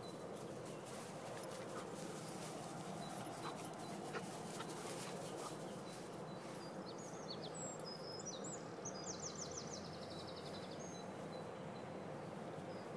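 Steady outdoor hiss of open air with faint ticks and rustles in the first half; a small bird chirps a few times and gives a quick trill in the middle.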